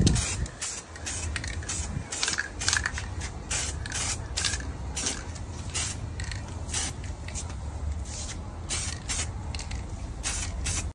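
Aerosol can of Multilaser Motor Care gold wrap paint hissing in short bursts, about two a second, as it coats an alloy wheel. A steady low rumble runs underneath.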